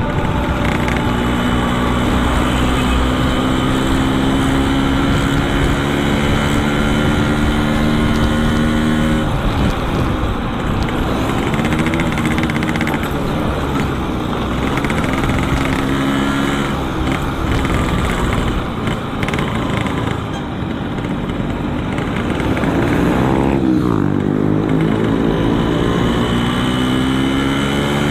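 Yamaha RX-King two-stroke single running through a Boban C33 aftermarket exhaust while riding, the engine pitch climbing steadily under acceleration. It drops sharply about nine seconds in as the rider shifts gear, then slows down and picks up again near the end.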